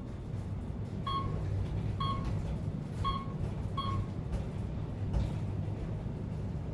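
Otis Elevonic 411M elevator car descending, with its steady low ride hum and a short electronic beep about once a second, four times in the first four seconds, the floor-passing tone as the car passes each floor.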